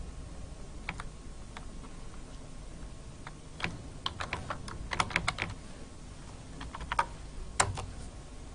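Computer keyboard keystrokes: scattered, irregular typing, a quick run of keys about five seconds in and a single louder keystroke near the end.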